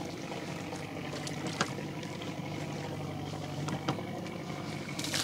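Small fishing boat's engine running steadily with a low hum, with a few sharp knocks spread through it.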